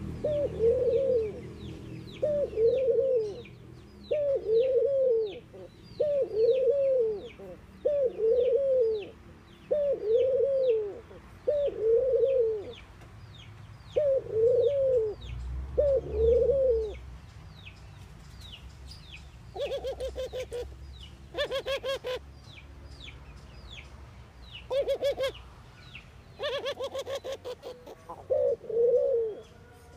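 Caged collared dove cooing: a run of about a dozen short, arched coos, roughly one every second and a quarter. After a pause come two stretches of rapid, stuttering rolled coos, then two more plain coos near the end. A smaller bird chirps faintly and high in the background throughout.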